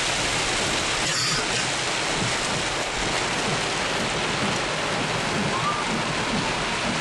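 Rain pelting the car's windshield and roof, heard from inside the vehicle as a steady, unbroken hiss.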